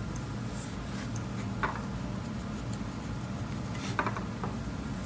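Steady low room hum with two faint short clicks, about one and a half seconds in and again near four seconds in, from small hand movements while eyeshadow is swatched onto the forearm.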